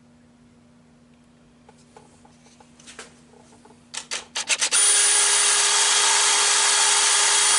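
Cordless drill with a 1/8-inch bit drilling a small hole into a lathe's metal headstock, a pilot hole for a 6-32 tap. A few faint clicks, then several short trigger blips about four seconds in, and the drill running steadily under load with a high whine.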